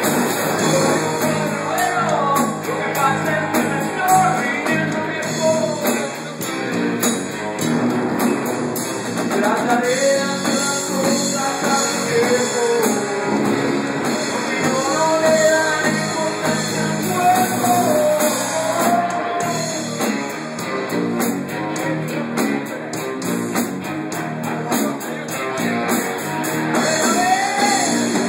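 Live rock band playing: a man singing over electric guitars and a drum kit.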